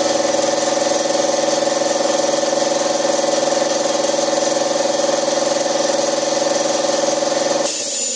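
ABAC 2.5 hp electric air compressor running steadily with a pitched hum. Near the end the motor stops and the hiss of a spray gun blowing air starts.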